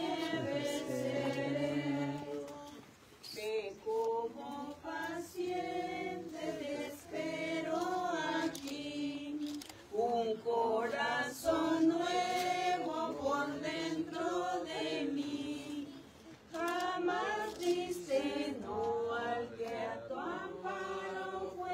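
A group of people singing a hymn together, in several sung lines with short breaks between them.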